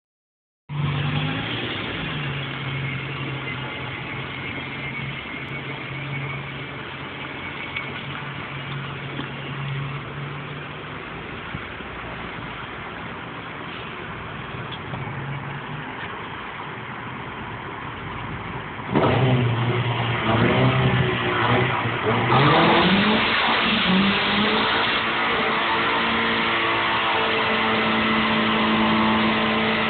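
Non-VTEC Honda B20 four-cylinder engine, running with a vacuum leak and homemade velocity stacks, idling steadily, then revved hard about nineteen seconds in, rising in pitch. From about twenty-two seconds it is held at high revs with a loud hiss of spinning tyres in a standing burnout.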